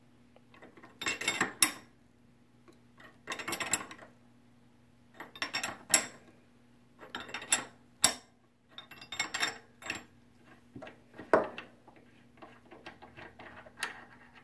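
Steel combination wrench clicking and clinking against the stainless steel fitting of a solenoid valve held in a vise, in short bursts every second or two as the nut is loosened a bit at a time and the wrench is reset.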